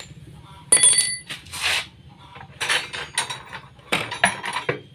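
Metal hand tools clinking and clattering against metal. There is a sharp ringing clink under a second in, then a short scrape and more irregular clinks and knocks.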